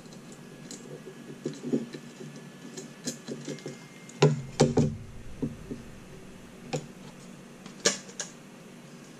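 Handling clicks and knocks of small bolts and hardware against a metal plate as they are fitted by hand, irregular and scattered, with a cluster of louder knocks about four seconds in and a sharp knock near the end.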